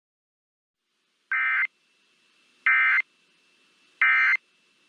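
Emergency Alert System SAME end-of-message data bursts: three short, identical screeching digital bursts about a second and a half apart, signalling that the alert message has ended.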